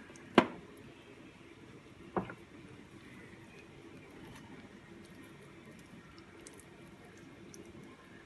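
Two sharp knocks as the parts of a tabletop wet grinder are handled: a loud one about half a second in and a weaker one about two seconds in, over faint room tone.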